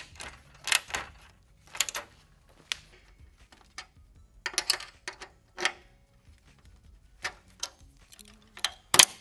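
Hand tools clicking and clinking in short bursts, about once a second: a small ratchet snugging up the nylock nuts on a mesh grille's brackets, then metal locking pliers being handled. The sharpest clicks come near the end.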